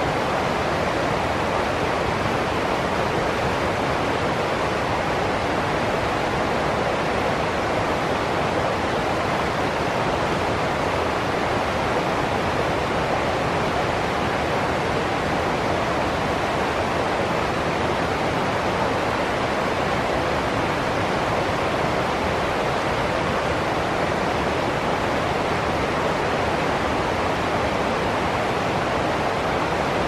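Water of a shallow rocky stream rushing over small rapids: a steady, even rush with no breaks.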